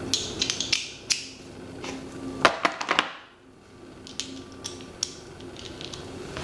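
Small hand tools and loose metal hardware being handled in a plastic tool kit: a string of sharp clicks and light clatters, busiest about two and a half seconds in, then a few scattered clicks.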